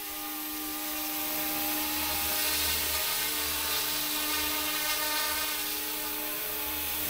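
RC scale AH-64 Apache model helicopter's motor and rotors whining at a steady pitch over a high hiss; the sound swells over the first two or three seconds, then holds.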